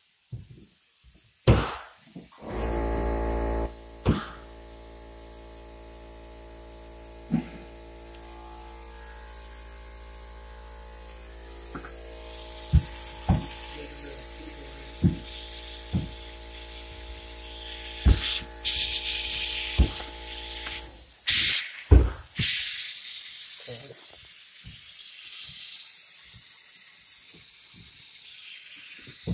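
Refrigerator compressor starting with a jolt about three seconds in and running with a steady electric hum for about eighteen seconds, then cutting off. A few seconds of sharp hissing follows, with handling clicks and knocks scattered throughout.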